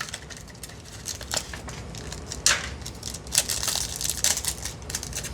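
Foil wrapper of a Yu-Gi-Oh trading-card booster pack being crinkled and torn open by hand: irregular crackling and rustling, busiest about halfway through.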